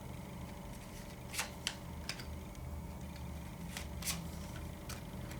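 Tarot cards being handled: a handful of quiet, short clicks and rustles of cards being moved on a table.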